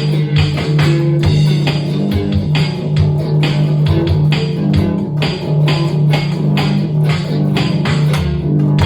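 Instrumental improvisation by a small band: guitar and bass guitar playing over a steady beat of sharp strokes, about three a second, with a low note held underneath.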